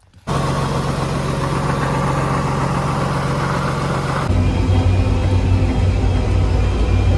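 John Deere 8220 tractor's diesel engine running steadily at idle, then, after an abrupt change about four seconds in, running louder and deeper as heard from inside the cab while driving.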